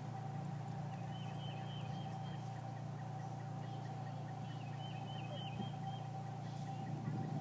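A bird singing in two runs of quick repeated chirping notes, over a steady low rumble and a faint steady hum.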